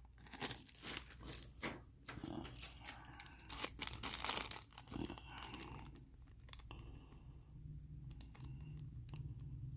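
Clear plastic bag crinkling and crackling as it is handled in the fingers, busy for the first several seconds and dying down to faint rustles near the end.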